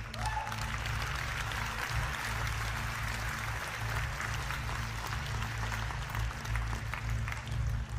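Audience applauding, a dense crackle of many hands clapping, over background music with a pulsing low bass.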